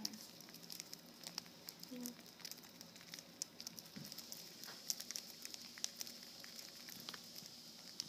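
Budgies pecking and cracking seed from a mixed seed pile, a faint stream of quick, irregular little clicks.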